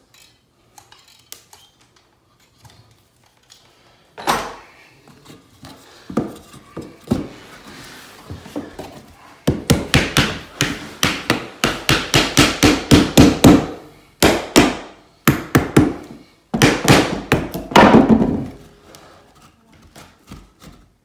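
Hammer knocking a glued 2x4 wood block into place beneath a plywood subfloor: a few single knocks, then from about ten seconds in rapid runs of blows about four or five a second.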